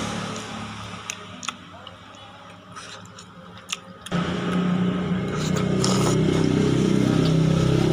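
A motor vehicle engine running close by sets in loudly and steadily about four seconds in. Before it there are only a few faint, short clicks.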